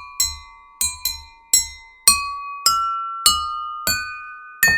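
Musical water glasses struck one at a time to play a short tune: nine clear ringing notes, each fading before the next, with the pitch climbing toward the end of the phrase.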